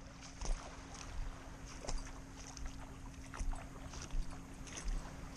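Small splashes of calm, shallow bay water at the shoreline, a short one every second or so, over a faint steady hum.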